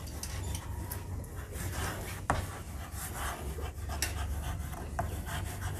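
Chalk scratching on a blackboard in short irregular strokes as words are written, with a couple of sharp taps of the chalk on the board. A steady low hum runs underneath.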